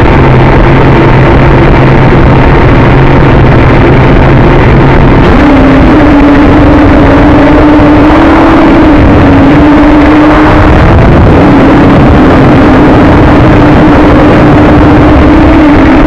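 JJRC X1 quadcopter's brushless motors and propellers whining, heard from the onboard camera with wind buffeting the microphone. About five seconds in the pitch steps as the motors throttle up for lift-off, then wavers up and down as they fight the gusts.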